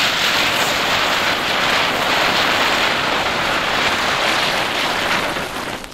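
Several small youth-firework ground spinners hissing steadily as they spin and spray sparks, fading away near the end as they burn out.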